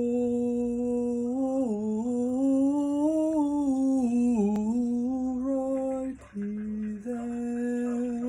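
A person humming long held notes that waver slightly in pitch. About six seconds in, the humming breaks off briefly, drops to a lower note, then returns to the first pitch.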